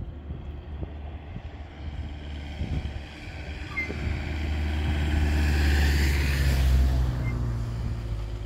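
A motor vehicle passing close by on the road, engine and tyres growing louder to a peak about six seconds in, then fading.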